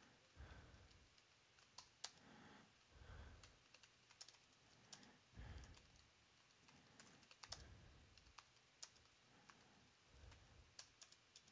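Faint typing on a computer keyboard: irregular keystrokes coming in short runs with pauses between them.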